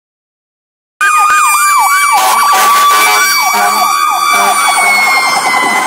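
Fire engine passing with its siren in a fast yelp, the pitch swooping up and down about three times a second over a steady higher tone that sinks slightly in pitch near the end. It starts abruptly about a second in.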